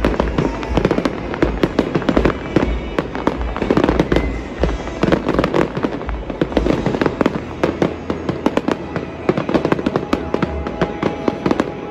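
Fireworks crackling in a dense, unbroken stream of rapid pops and cracks, many a second, from gold crackle effects.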